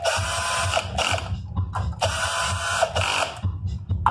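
Cordless drill-driver set to its lowest torque setting, driving screws in short runs, its clutch ratcheting as each screw seats. It pauses briefly about halfway and stops near the end before starting again.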